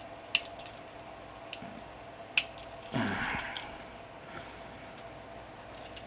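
Small hard-plastic pieces being handled and pressed into a plastic action figure: two sharp clicks, then a short rustle about three seconds in.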